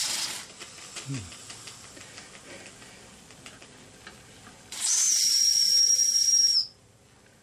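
Whistle on a small scratch-built model steam engine's brass boiler: a high steady whistle over steam hiss ends just after the start. After a few seconds of fainter hiss, a second blast of about two seconds, about five seconds in, cuts off sharply.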